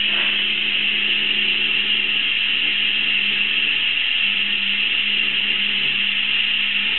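La Pavoni lever espresso machine's boiler whistling steadily on its 800-watt heating setting, the sign that it has reached pressure. A high, hissing whistle with a steady low hum under it.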